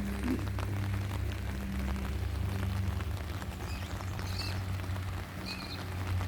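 Rain falling, an even hiss with fine drop ticks, over a steady low hum. A few short high chirps come in the second half.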